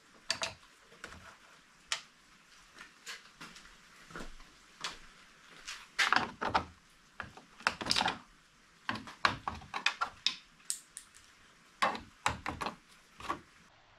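Plastic push-pin trim clips being pried out of a plastic radiator cover panel with a flathead screwdriver and panel clip pliers: an irregular scatter of sharp clicks, snaps and short scrapes of metal tools on plastic.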